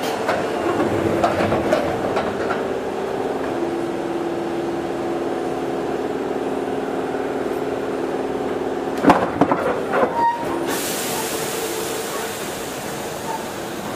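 Sotetsu 7000 series electric train pulling away from a station, heard from inside the motor car: the Hitachi GTO-VVVF inverter and traction motors give several steady tones that shift in pitch in steps. Around nine to ten seconds in, a few clanks come through, and then a steady high hiss comes in suddenly.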